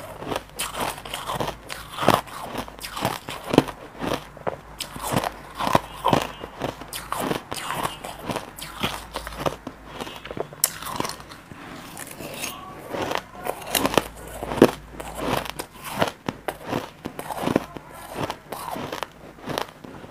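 Crushed ice being bitten and chewed, close-miked: a dense, irregular run of crisp crunches and cracks, several a second.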